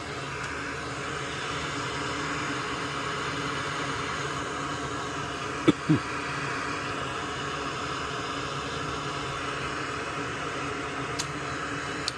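Steady whir of a small fan on a repair bench, with two quick sharp knocks about halfway through and a faint tick near the end.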